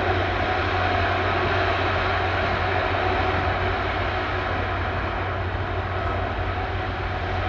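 Airbus Beluga XL's twin Rolls-Royce Trent 700 turbofans running at taxi power: a steady jet rush with a low hum underneath, easing off slightly after the middle.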